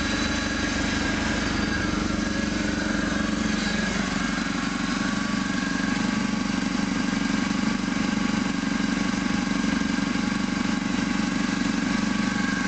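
UAZ Simbir's ZMZ-409 four-cylinder petrol engine idling evenly, with no timing-chain knock now that its broken lower chain and the upper chain have been replaced. The pitch of the drone shifts slightly about four seconds in.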